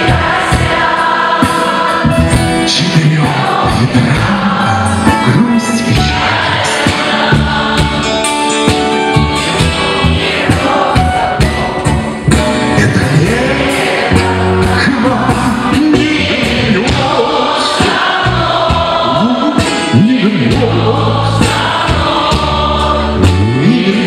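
Live band playing a pop song on electric guitars and keyboard while many voices sing the melody together, the concert-hall audience singing along with the band.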